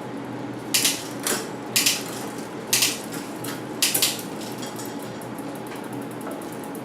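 Mountain bike drivetrain turning in a stand: a steady running hum from the chain over the rear cassette, broken by about six short, sharp rattles in the first four seconds as the rear derailleur shifts the chain across the cogs, then lighter ticking.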